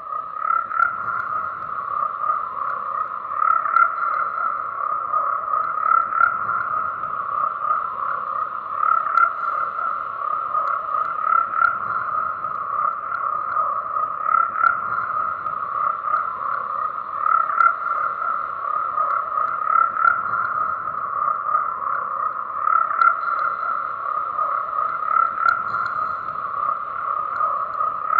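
Dense chorus of many frogs croaking continuously, a steady mass of calls with louder swells every two to three seconds.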